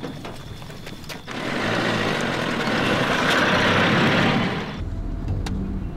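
Container truck driving by, its engine and tyre noise rising into a loud, even rush for a few seconds. Near the end it changes abruptly to a steady low engine hum.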